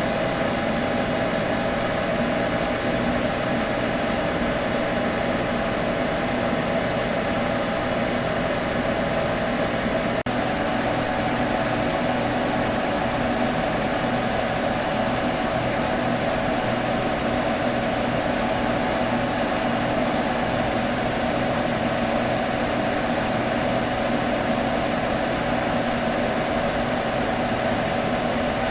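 Computer running with a steady hum over an even whoosh of air, unchanging apart from a momentary dropout about ten seconds in.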